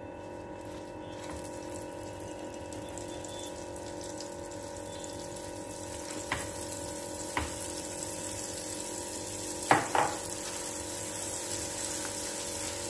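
Ground dal paste frying gently in melted ghee in a nonstick frying pan, a steady sizzling hiss that grows slowly louder. A few short knocks against the pan stand out, the loudest a double knock about ten seconds in.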